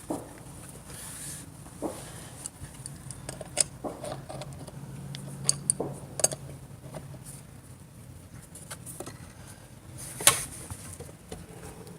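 Scattered light metallic clinks and taps of tools and scooter parts being handled, a few seconds apart, the loudest about ten seconds in.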